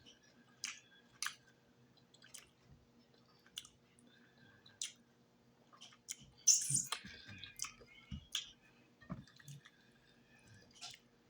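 A person chewing fried fish close to the microphone: scattered wet mouth clicks and smacks, with a louder burst of noise about six and a half seconds in, over a faint low hum.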